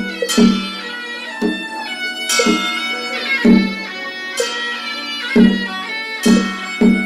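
Taoist ritual music: a wooden fish and a bronze bowl bell are struck about once a second, each stroke a knock followed by ringing, over a sustained droning melody line.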